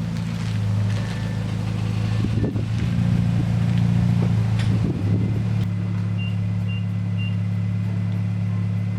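Nissan Cube Z12's four-cylinder engine idling steadily through an exhaust with no rear muffler, venting straight out of the centre resonator via an aftermarket tip. There is a brief waver about two and a half seconds in and again around five seconds.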